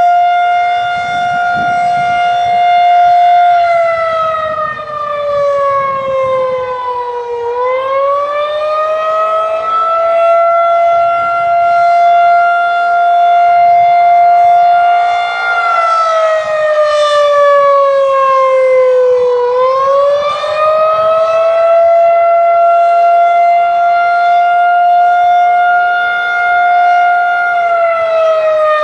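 Federal Signal 2001-130 electromechanical tornado siren sounding the wavering attack signal: a loud, steady high tone held for about eight seconds, then falling in pitch for about four before winding back up. The pitch drops three times, the last starting near the end.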